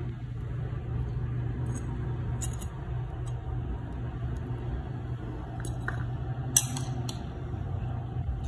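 A knife spreading jam over the top of a cake, making a few light clicks and scrapes over a steady low hum. The loudest click comes about two-thirds of the way in.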